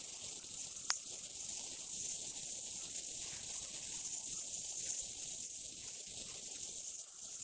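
Steady high-pitched hiss of recording noise in a silent room, with one faint short click about a second in.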